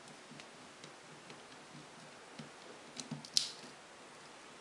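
Small screwdriver driving screws into the metal side bracket of a laptop LCD panel: faint scattered clicks and ticks, with a few sharper clicks about three seconds in.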